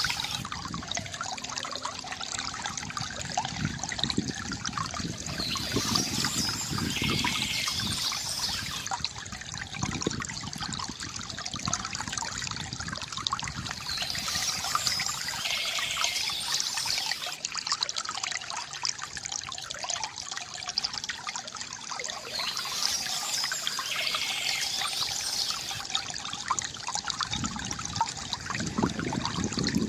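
Water trickling and gurgling from a bamboo fountain, splashing steadily. A short, high chirping phrase, presumably birdsong, comes back about every nine seconds.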